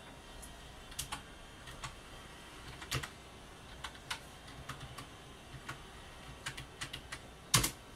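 Computer keyboard clicking under someone typing: sparse, irregular keystrokes, with the loudest pair near the end.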